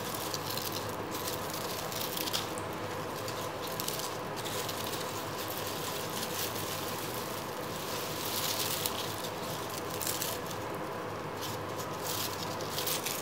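Crisp, flour-coated deep-fried onion slices crackling and rustling as gloved hands toss and crumble them in a wire mesh basket, coming in irregular crunchy flurries; the onions are fried dry and super crunchy.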